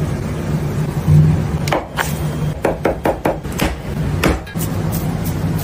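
A knife chopping roasted eggplant and garlic on a wooden board: a quick run of a dozen or so sharp chops starting about a second and a half in and stopping near the end. A steady low hum runs underneath.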